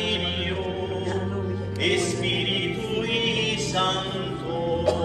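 A crowd of pilgrims singing a hymn together in slow, held notes.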